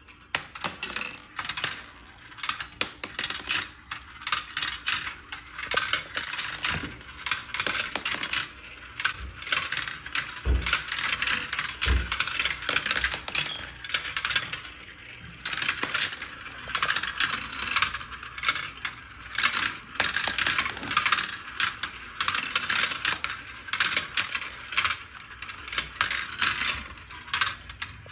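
Marbles rolling and clattering through plastic marble-run tubes and chutes: a rapid, continuous rattle of small clicks. Two dull thumps come about ten and twelve seconds in.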